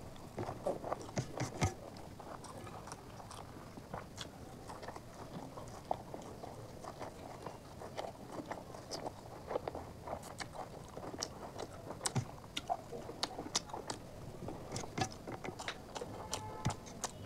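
Close-up chewing and biting as a person eats chicken curry and rice by hand, with many irregular short mouth clicks.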